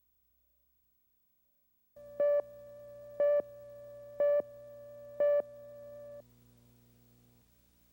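Four short electronic beeps, about a second apart, over a steady electronic hum, after a couple of seconds of silence; the hum drops away after the beeps.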